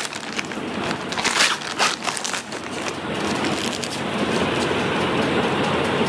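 Plastic packaging crinkling and crackling as a set of PVC table mats is unwrapped by hand. In the second half this gives way to a steadier rustling as the rolled mats slide out of their plastic sleeve.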